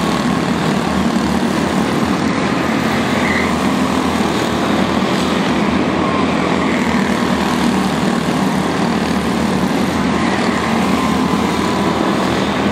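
Several Junior Honda quarter midget race cars running flat out together, their small Honda engines making a steady, overlapping buzz whose pitch rises and falls now and then as the cars go through the turns.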